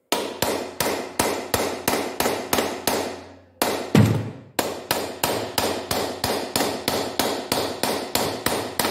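Hammer striking a wooden block held against the metal body of a 1.5 dCi K9K diesel's EGR valve, light quick blows about three a second. There is a short break about three seconds in and one heavier blow just after. The taps are knocking the carbon-stuck valve loose in its housing so it can be turned out.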